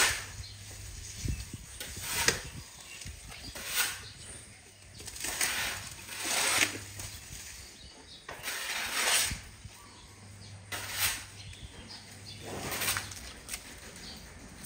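An Asian elephant handling and eating its fodder of grass and stalks, making a rustling swish every second or two.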